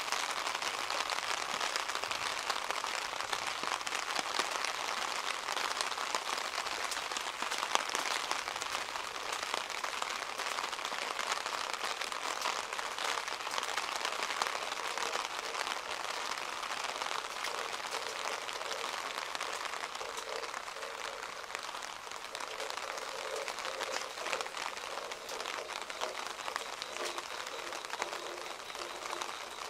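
Steady rain falling, with many individual drops pattering close by on hard surfaces.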